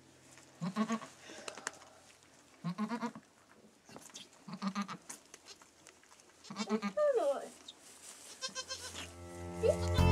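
Doe goat making short, low, soft calls to her newborn kids as she licks them clean, about one every two seconds, with one higher call that falls in pitch near the middle.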